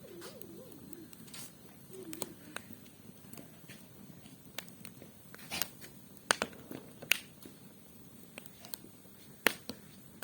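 Wood fire burning in a mangal (barbecue brazier), crackling with irregular sharp pops, a few louder snaps in the second half. A faint wavering voice-like tone sounds in the first second and again briefly about two seconds in.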